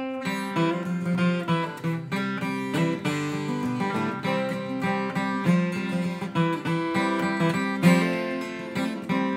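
Acoustic guitar playing the instrumental introduction to a folk song: a steady run of picked notes and chords that ring on into one another.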